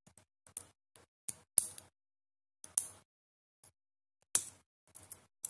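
Metal parts of an automatic hair clip clicking and scraping as they are handled and fitted together by hand: a string of short, sharp clicks with quiet gaps between them, the loudest about a second and a half in and again a little past four seconds.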